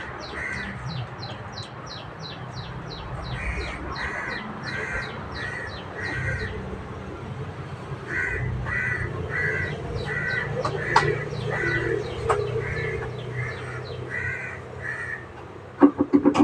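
Crows cawing in a steady series, about two caws a second, with quick high chirps of smaller birds above them in two spells, over the low hum of a busy store.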